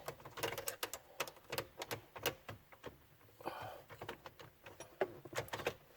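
Irregular small clicks, taps and rattles of hand tools and metal and plastic parts being handled while the ignition lock cylinder housing is worked loose from the steering column, with a brief scrape about three and a half seconds in.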